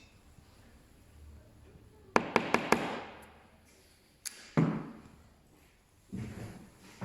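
Four quick sharp taps about two seconds in, then a click and a heavier knock with a short ringing tail, and a softer thud near the end.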